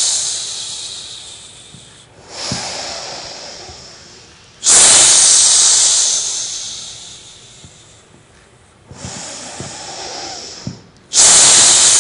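Qigong breathing exercise: loud, hissing breaths close to the microphone. Three strong breaths start sharply and fade away over a few seconds, with softer breaths between them.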